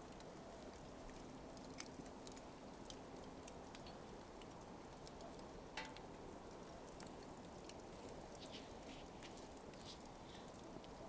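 Smouldering coals crackling faintly: sparse, irregular small ticks and pops over a low steady hiss.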